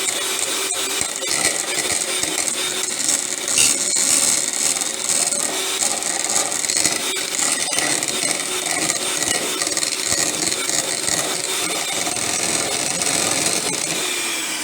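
Electric hand mixer running steadily on medium, its beaters whipping a thick, chunky mixture of solidified coconut oil and shea butter in a deep bowl.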